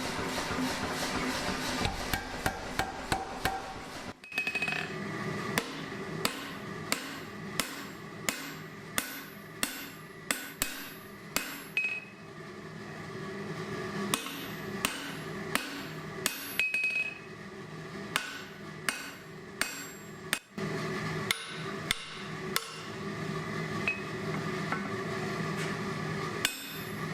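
Hammer blows on hot mild steel at the anvil, forging a leg vise part. Sharp strikes come at about one and a half a second, starting about four seconds in, with a few short pauses and some brief ringing, over a steady rushing noise.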